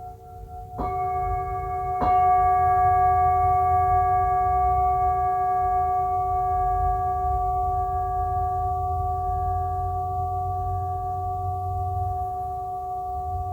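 Meditation background music of singing bowls: two bowls struck about one and two seconds in, their tones ringing on steadily and slowly fading over a low drone.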